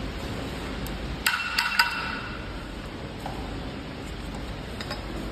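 A quick cluster of four short, ringing clinks of steel tools and parts knocking together about a second in, over a steady background hiss, with a few faint clicks near the end.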